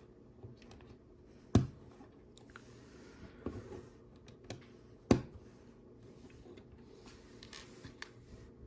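Small plastic LEGO pieces being handled, clicked together and set down on a hard surface: scattered light clicks, with two sharper knocks about a second and a half in and again about five seconds in.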